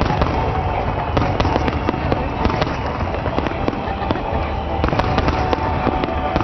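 Fireworks going off in rapid succession: a dense, continuous volley of bangs and crackles.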